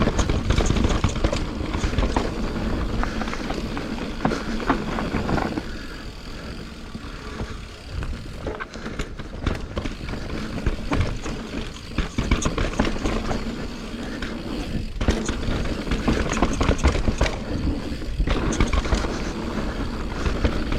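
Mountain bike descending a rough downhill trail: wind rushing over the microphone, with the bike rattling and knocking over rough ground throughout. It eases off for a few seconds in the middle.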